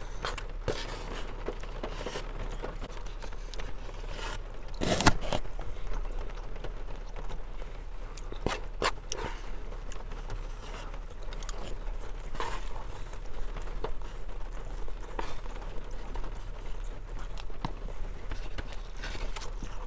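Eating sounds at close range: a plastic spoon scraping and tapping in a styrofoam takeout container, with chewing, and a louder clatter about five seconds in.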